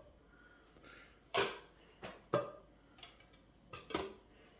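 Red plastic party cups being picked up and knocked on a tabletop: several scattered light clacks and taps, the loudest about a second and a half in.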